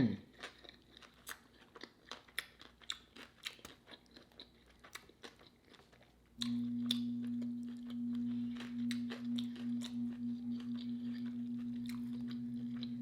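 Close-miked chewing of a crunchy pickle-wrapped sandwich, with many small wet crunches and clicks. About six seconds in, a steady low hum starts and holds to the end.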